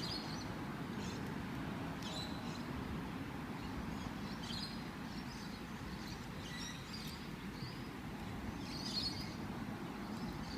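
Steady low rumble of road traffic passing over a bridge overhead, with short, faint, high bird chirps every second or two.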